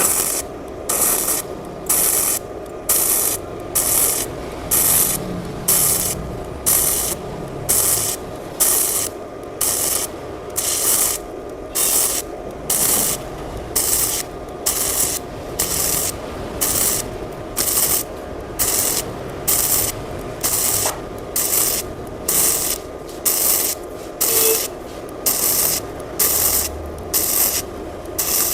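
MIG welder arc crackling in short, evenly repeated bursts, about one and a half a second, as the torch trigger is squeezed and released to stitch-weld thin steel bars at about 110 A. A steady hum from the machine runs underneath.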